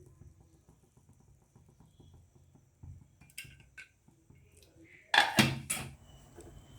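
Metal cookware clattering: a pressure cooker and its lid being handled, with a few sharp knocks and scrapes about five seconds in after faint light ticking.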